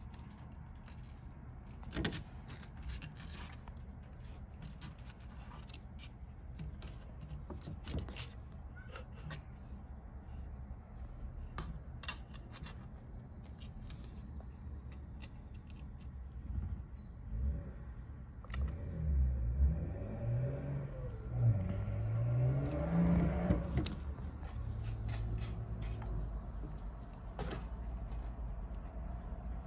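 Small claws clicking and scratching on the plywood of a wooden kitten nest box, scattered taps over a steady low rumble. From about 18 to 24 seconds in, a louder low hum glides up and down in pitch and then fades.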